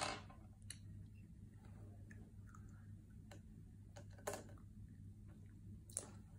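Small candies clicking and rattling against a small glass bowl as a child's fingers pick through them: a rattle right at the start, then scattered light clicks, the sharpest about four seconds in and another near the end.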